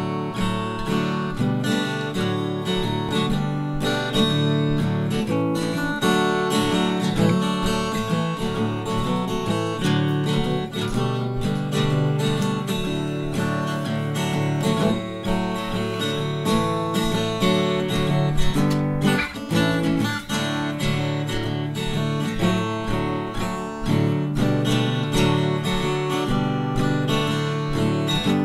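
Background music: acoustic guitar playing, plucked and strummed.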